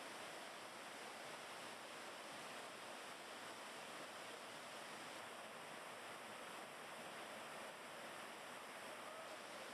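Waterfall and fast-flowing current rushing steadily.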